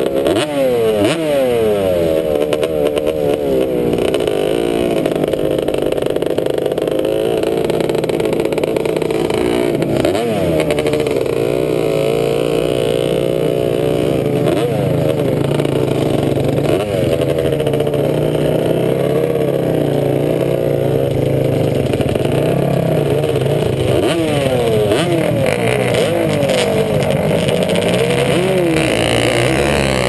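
Sport quad engine run hard from the handlebars, revving up and dropping back again and again as it shifts and slows.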